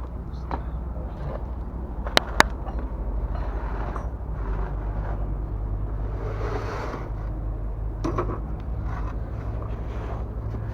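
Work noise while fitting oil filters to a truck engine: two sharp metallic clinks about two seconds in, a stretch of scraping and handling in the middle and a few small knocks later, over a steady low hum.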